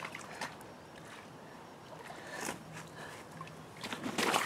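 Water splashing and sloshing in short bursts as a small carp is brought in and netted, with the loudest splashes about two and a half seconds in and near the end.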